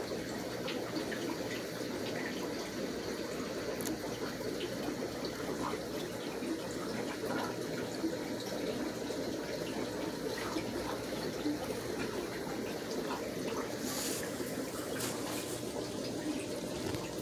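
Steady running and splashing water from aquarium filtration in a room of fish tanks, with scattered faint ticks and a short brighter splash or rustle near the end.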